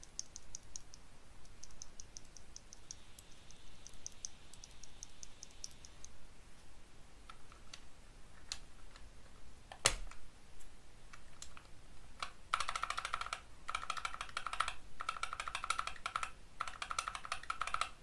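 A single Gateron Optical Yellow linear key switch being pressed over and over: first a quick, even run of light clicks, then sparser presses with one sharp clack about ten seconds in, then fast bursts of key presses on the keyboard with a ringing note under them over the last five seconds.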